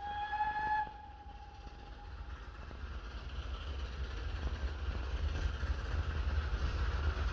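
Steam locomotive whistle, one short steady blast of about a second that trails off. Then the steam train running, growing gradually louder as it comes closer.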